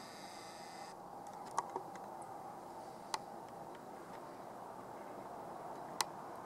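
A few sharp clicks over the steady hiss of a camera microphone, two in quick succession early on and the loudest about six seconds in, the sound of the camera being handled and adjusted.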